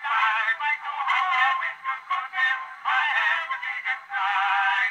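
Horn cylinder phonograph playing a copy of a 1907 two-minute wax cylinder: an acoustic-era baritone and tenor duet with orchestra, with wavering sung notes. The sound is thin, with no bass.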